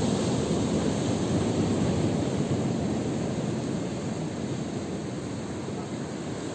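Steady rushing noise of sea surf and wind on a rocky shore, easing slightly in the second half.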